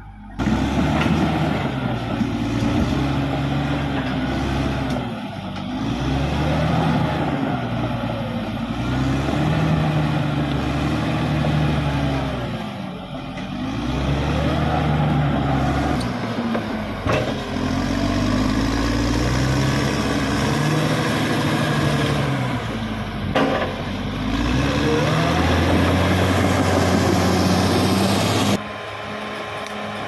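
Caterpillar D6R XL bulldozer's diesel engine working under load, its pitch rising and falling every few seconds as the blade pushes soil, with two sharp metallic clanks. Near the end it drops to a quieter, steady hum.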